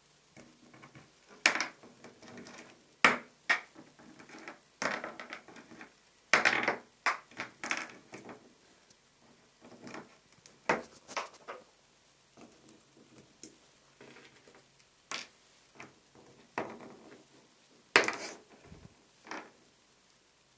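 Galah playing with small pebbles, knocking and pushing them about with its beak so that they clack together in irregular knocks, several of them loud.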